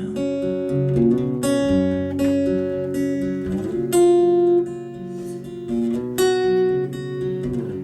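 Acoustic guitar strumming chords, an instrumental passage between sung lines of a song.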